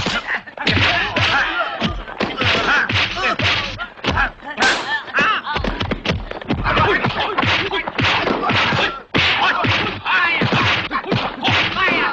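Kung fu film fight sound effects: a rapid run of dubbed punch and kick impacts, whacks and thuds, mixed with the fighters' yells and grunts.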